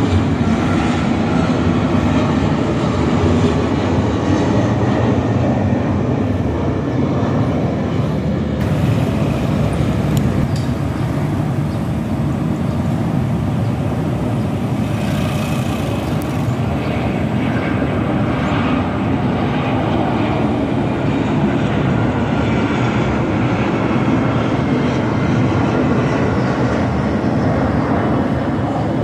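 Twin CFM56 turbofan engines of a Boeing P-8 Poseidon on landing approach with gear down: a loud, steady jet drone that holds the whole time.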